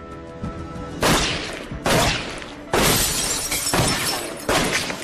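Pistol shots in quick succession, about five in three and a half seconds, each sharp crack trailing off, with glass shattering among them.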